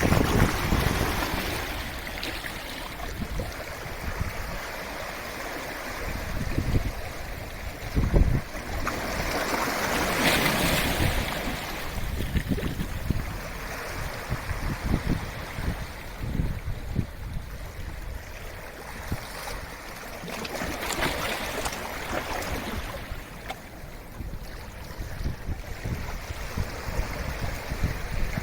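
Sea waves washing in against the shore, swelling and falling back in several surges, the strongest about ten seconds in and again near twenty seconds. Wind buffets the microphone now and then, with one strong gust about eight seconds in.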